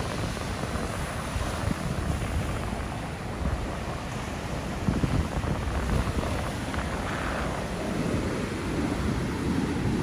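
Ocean surf breaking and washing up a sandy beach, with wind buffeting the microphone in gusts.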